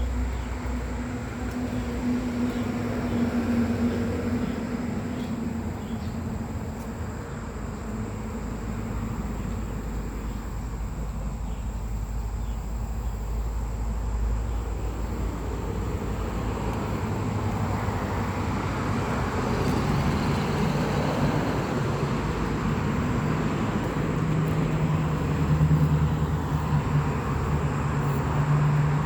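A motor vehicle running: a continuous low rumble with an engine hum that sits lower in pitch in the second half.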